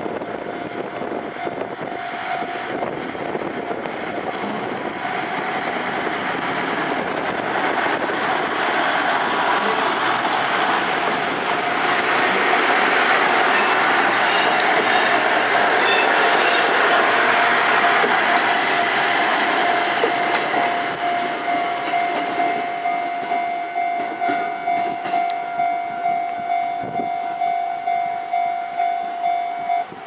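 A three-car KiHa 11 diesel railcar train rolls slowly past. The running of its engines and wheels swells to its loudest about halfway through. A level-crossing alarm rings throughout, its strokes standing out about twice a second near the end as the train moves away.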